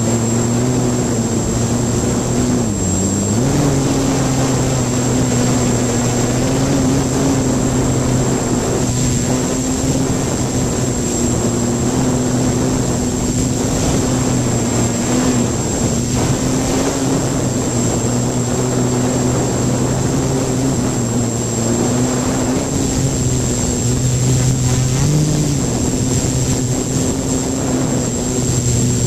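Electric motors and propellers of a hexacopter buzzing steadily in flight, heard up close from one of its arms, with a rush of air noise. The pitch dips and recovers about three seconds in and rises briefly near the end as the throttle shifts.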